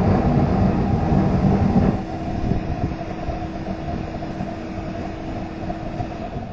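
Waste-oil-fired foundry furnace burner running with a loud, steady rushing noise. About two seconds in the deep rumble drops back, and a steady hum carries on under the rush until near the end.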